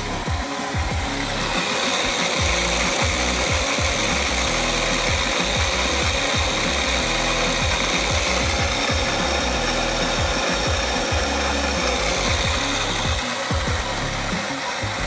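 Background music, a steady dense track with no speech over it.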